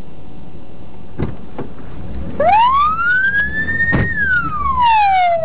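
An emergency-vehicle siren winds up once in pitch and then slowly falls away, heard over the low rumble of a car driving along. A few brief knocks sound in the first seconds.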